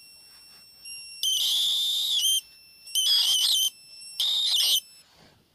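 Homemade ignition-coil driver, a blocking-oscillator circuit driving an engine ignition coil, giving a steady high-pitched whine as it oscillates with its output open. Three times it breaks into a loud, harsh buzzing hiss, about a second, under a second and half a second long, as the high-voltage arc strikes; the whine stops about five seconds in.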